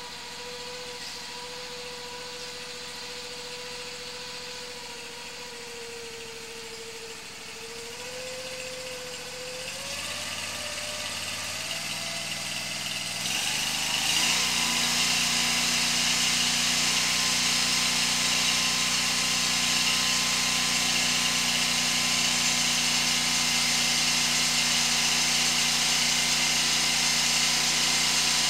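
Sewer hydro-jetter's engine idling steadily, then speeding up about 8 seconds in as the jetter is turned on; at about 14 seconds the high-pressure water comes on and a loud steady hiss joins the engine running at speed, blasting at the tree roots in the sewer main.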